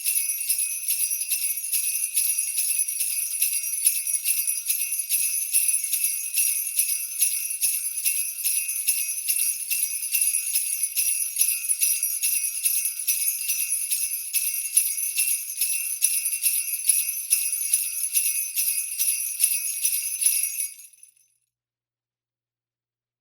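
Jingle bells shaken without pause in a steady, rapid, high-pitched jingling. It dies away about 21 seconds in, leaving silence.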